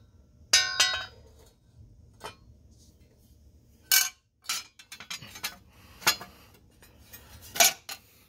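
Thin metal engine spacer plate clanking as it is handled and fitted over the block's dowel pins: a ringing clang near the start, then scattered lighter clinks and knocks.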